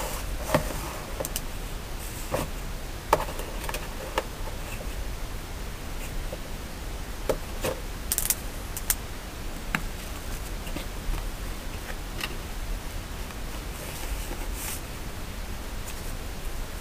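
Scattered light clicks and taps as a Kindle e-reader in its case is handled by mittened hands, over a steady low hum.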